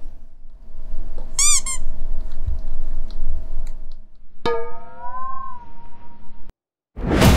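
A domestic cat meowing: a few short chirps about a second and a half in, then one drawn-out meow that rises slightly, falls and levels off before cutting off. Just before the end a loud rush of noise begins.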